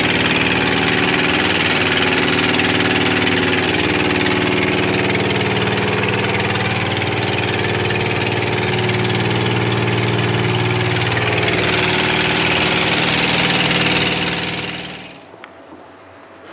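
Wooden fishing boat's engine running steadily and loudly, heard from on board. It fades out about fifteen seconds in, leaving only faint wind and water.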